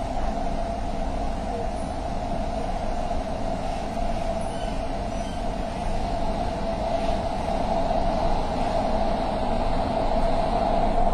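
Doha Metro train running on its track, heard from inside the front car: a steady rumble with a constant hum, getting louder in the second half as the train runs into the tunnel.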